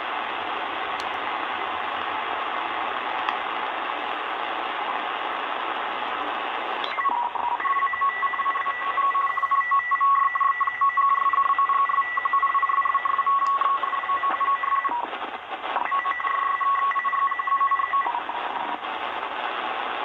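Sangean ATS-909X2 shortwave receiver in upper sideband, tuning the utility stations: band hiss for about seven seconds, then a digital utility data signal comes in as steady tones with a rapid flutter for about eleven seconds, breaking off briefly once, before hiss returns.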